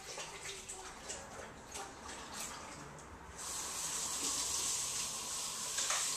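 Kitchen tap turned on about three seconds in and running steadily into the sink, after a few light clicks and knocks.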